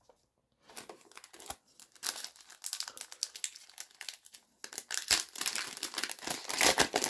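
A foil booster pack of Pokémon trading cards being crinkled and torn open by hand: a dense run of crackles and tearing that starts under a second in and grows louder toward the end.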